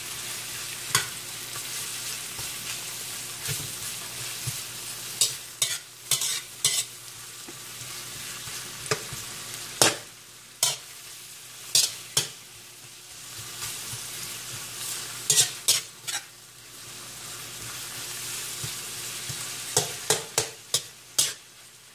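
Garlic, onion and tomatoes sizzling steadily in butter in a frying pan while a cooking utensil stirs them, knocking and scraping against the pan in irregular clusters of sharp clicks.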